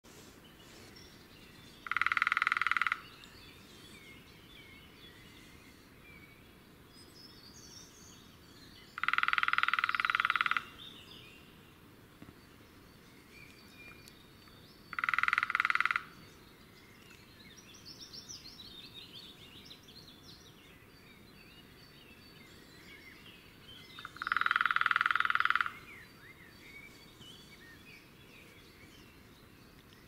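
Woodpecker drumming: four rattling drumrolls spaced several seconds apart, each lasting about a second or a little more. Faint songbird twittering carries on between them.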